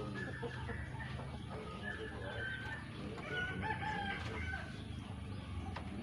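A rooster crowing, with whistled notes from a young caged white-rumped shama, over a low steady hum.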